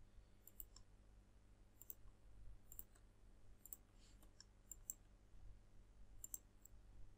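Faint computer mouse clicks, about nine spaced irregularly, some in quick pairs, over a low steady hum.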